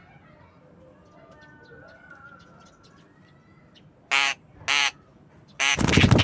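Javan myna giving two short, loud, harsh calls about four seconds in, then a loud burst of wing flapping right at the microphone near the end. Faint bird chatter runs underneath.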